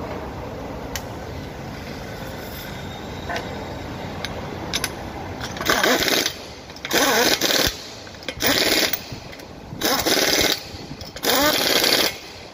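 Pneumatic impact wrench hammering the wheel nuts of a front wheel in five short bursts about a second and a half apart, running the nuts down as the wheel is refitted. Steady workshop background noise with a few light clicks fills the first half.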